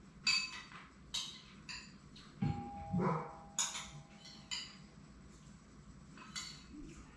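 A series of light metallic clinks, each ringing briefly at the same bright pitch, roughly one every second, with a duller knock about two and a half seconds in.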